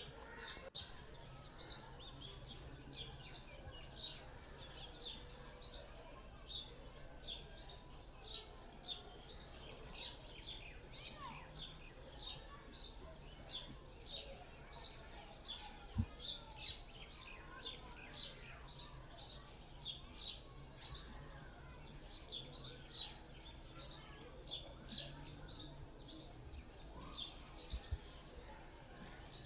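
A small bird chirping over and over, short high chirps at a steady rate of a little under two a second, with a couple of sharp clicks about two seconds in.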